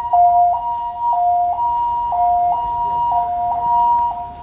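Two-tone hi-lo siren of an emergency vehicle, alternating between a higher and a lower pitch about every half second, dropping off near the end.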